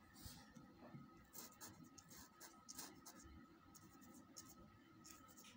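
Faint scratching of a pencil on paper, in many quick, irregular short strokes as small squiggly texture marks are shaded in.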